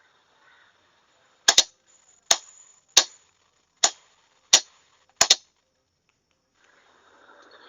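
Morse code being sent for receiving practice, coming through the online call's audio as a series of sharp clicks rather than a steady tone. There are about eight clicks, some in close pairs, at uneven spacing.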